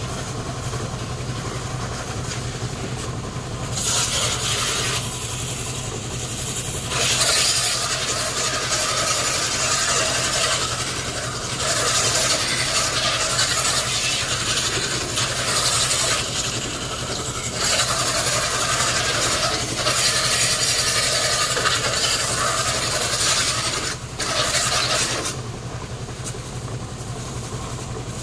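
High-pressure water jet from a pressure washer hose spraying a van's body and wheels, hissing in several bursts of a few seconds each, over a steady low machine hum.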